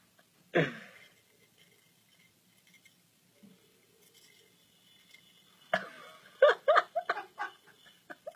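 A person's voice: one short sound falling in pitch about half a second in, then a quick run of five or six short sounds near the end, with quiet between.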